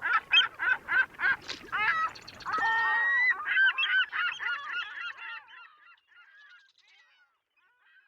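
Geese honking: a quick run of honks about three a second, then several birds calling over one another, fading away after about six seconds.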